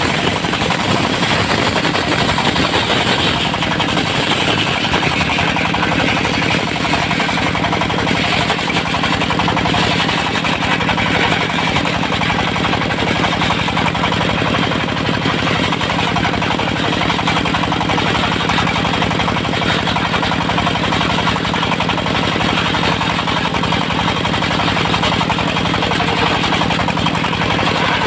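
Engine-driven portable circular sawmill running steadily, its blade ripping through dry, hard teak, with a rapid mechanical chatter over a dense saw hiss that is brighter between about 3 and 12 seconds in.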